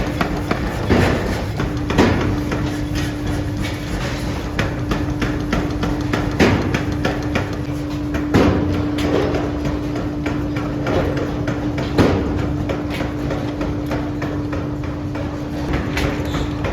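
Forging machinery striking hot iron: a handful of heavy blows at uneven intervals among many lighter metal clanks, over a steady machine hum.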